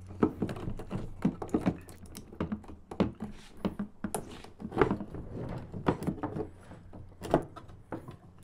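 Irregular knocks, taps and rustles of a plastic dirt-bike fuel tank being handled while the fuel pump assembly and its wiring are worked through its opening, over a faint steady hum.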